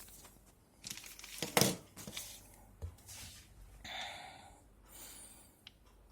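Handling noise of a phone and its charger cable: a few sharp clicks and knocks, then brief rustling.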